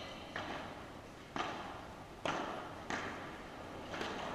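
Padel ball impacts: five sharp knocks, spaced about a second apart, each echoing in a large indoor hall.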